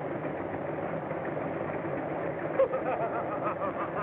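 A scuffle: a sharp blow lands about two and a half seconds in, followed by short strained vocal cries, over a steady rushing background noise.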